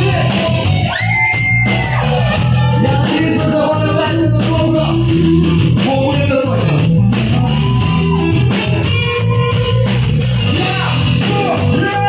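Live rock band playing loudly: electric guitar, bass and drums, with a male singer's vocals.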